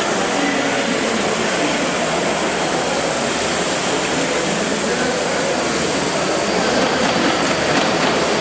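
Steady rushing hiss of steam from a gauge 1 live-steam model of the LMS Turbomotive, the turbine-driven locomotive being worked on the track; the highest part of the hiss drops away about six and a half seconds in.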